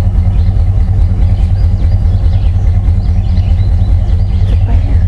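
Ford Bronco's engine and drivetrain running, a loud, steady low rumble heard from inside the cab, with faint light rattles over it.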